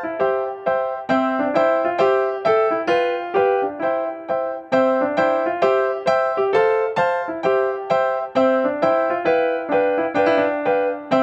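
Background music: a piano-like keyboard playing a light, steady run of single notes, about three a second.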